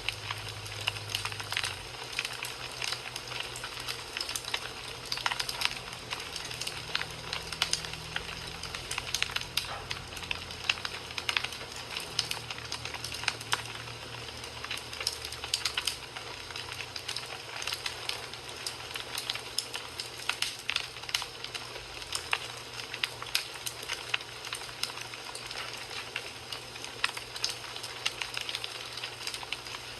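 Wood fire crackling, with a steady hiss and dense, irregular sharp pops and snaps.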